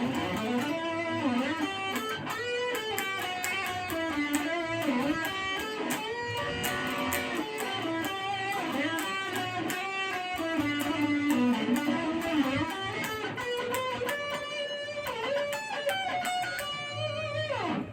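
Ibanez Gio electric guitar playing a melodic lead line with string bends and vibrato. It ends in a quick falling pitch slide.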